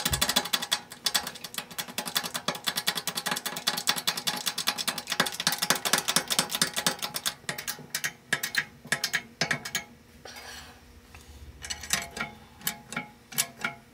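Hydraulic shop press being worked to bring its ram down on a tractor pinion shaft, pressing on a new tapered roller bearing. It gives a rapid, even clicking for about ten seconds, then goes quieter, with a few scattered clicks near the end.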